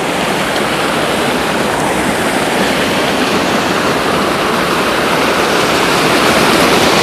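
Water from an overflowing, rain-swollen pond rushing and pouring over its edge like a small waterfall: a steady, unbroken rushing noise that grows slightly louder near the end.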